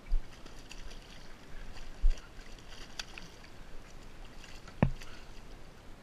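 Hooked bluefish splashing and thrashing at the water's surface beside a boat, a patter of small splashes and spray. Two dull low thumps near the start and about two seconds in, and one sharper knock near the end.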